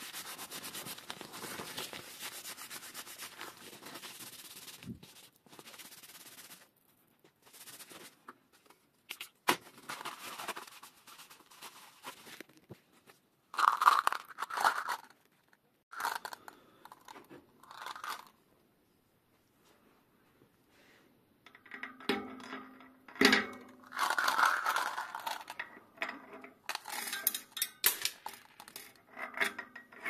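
Paper towel rustling and crinkling as oily hands are wiped on it for about six seconds. After that come scattered handling noises: short crinkles, light clicks and clinks of small metal parts on the workbench, with pauses between them.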